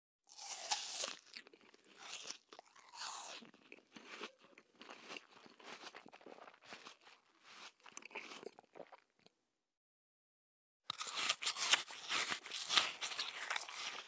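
A person biting into crunchy food, then chewing it with irregular crunches that grow fainter over about nine seconds. After a short silence a denser, louder run of crunching begins near the end.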